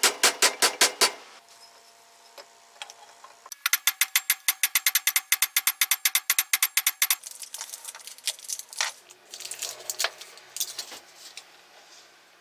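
Rapid runs of sharp mechanical clicks, about seven a second: a short run at the start, a longer one from about three and a half seconds in, then scattered irregular clicks.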